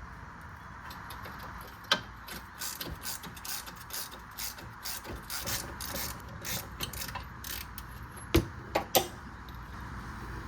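Ratchet wrench clicking in quick runs as the 22 mm bolts holding a brake caliper are undone, with a few sharp metal knocks near the end.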